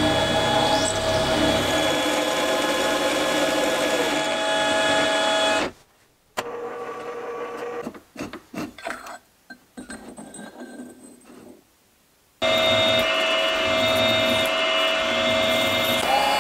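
Milling machine running, an end mill cutting a slot in a steel bar, with a steady motor and gear whine. About six seconds in it drops to a much quieter stretch of short, irregular cutting sounds as a countersink works the bar. A few seconds later the machine runs loud again as a twist drill bores into the steel.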